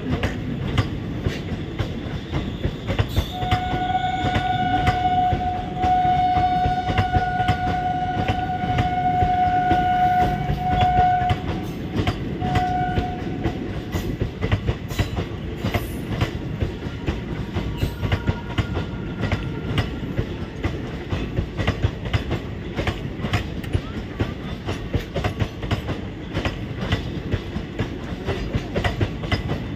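Passenger coaches of an Indian Railways express train rolling past, wheels clattering steadily over the rail joints. About three seconds in, a train horn sounds one long note lasting some eight seconds, then a short blast shortly after.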